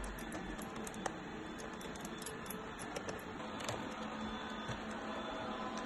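Faint, scattered clicks and light knocks of hard plastic toy shell parts being handled, with a sharper click about a second in, over a faint steady hum.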